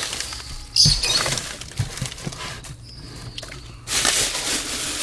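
A mouse squeaking, two short high squeaks, a strong one about a second in and a fainter one past the middle, amid rustling and scrabbling as it is grabbed at with a gloved hand.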